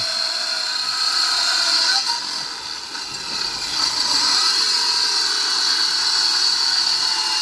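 Handheld electric circular saw cutting lengthwise along a wooden plank, with a steady high whine. The sound dips briefly about three seconds in and then comes back up.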